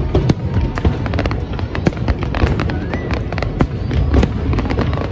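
Aerial fireworks display: a rapid, irregular string of bangs and crackling bursts over a continuous low rumble.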